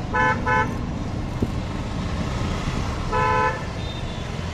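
Vehicle horns honking in congested street traffic: two quick toots right at the start and one longer toot about three seconds in, over a steady rumble of engines and road noise.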